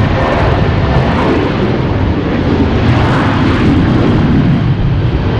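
Jet airliner engines running loud and steady, a continuous roar.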